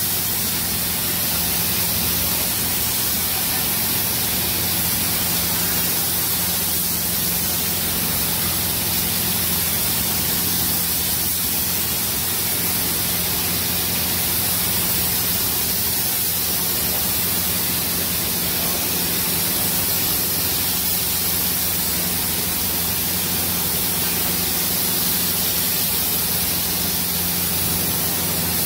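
Compressed-air paint spray gun hissing steadily as it sprays paint onto a car body, over a steady low hum.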